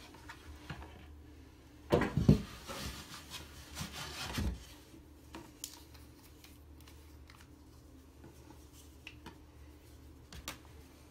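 MDF skirting board pieces scraping and knocking as they are pulled away from the wall and laid down flat, with a few dull thumps about two and four seconds in; after that only a few light handling clicks.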